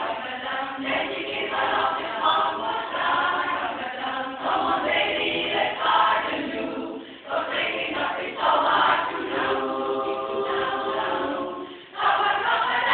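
Women's barbershop chorus singing a cappella in close harmony, with short breaks between phrases about seven and twelve seconds in.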